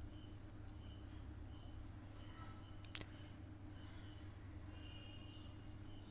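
Crickets trilling steadily at a high pitch in the background, over a low steady hum, with one short click about three seconds in.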